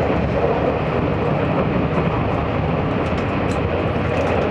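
Steady rumble inside a Taiwan Railways DR3000 diesel multiple unit running through a long tunnel, the engine and wheel noise heard from the passenger cabin.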